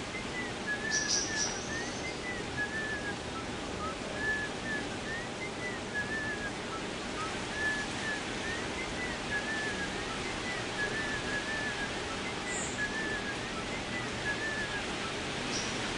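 A person whistling short repeated phrases of quick notes with small up-and-down slides, over a steady hiss of wind in trees. A brief high chirp sounds about a second in.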